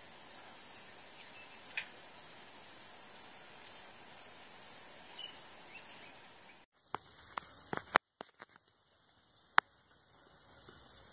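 Insects chirring: a loud, steady, high-pitched drone with a regular pulse, which cuts off abruptly about two-thirds of the way through. After that, a much quieter background with a few sharp clicks.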